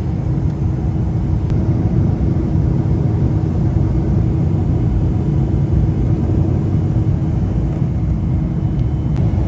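Airliner cabin noise in cruise flight: a steady low rumble of the jet engines and air rushing past the fuselage, with a faint steady hum running through it.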